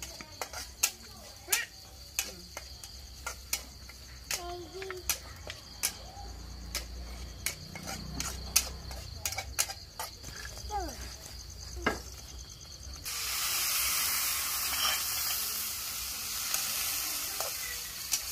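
Metal spatula scraping and clinking against a wok, sharp clinks every second or so. About two-thirds of the way through, loud frying sizzle starts abruptly and carries on.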